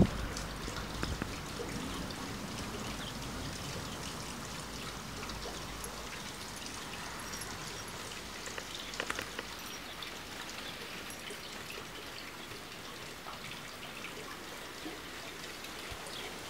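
Steady, even outdoor hiss of garden ambience, with a short cluster of soft clicks about nine seconds in.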